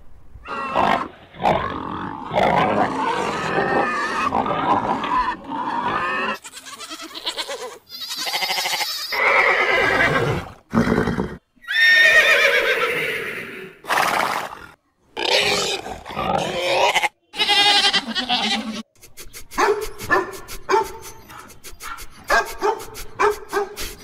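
A string of animal calls cut one after another, among them a horse neighing about halfway through.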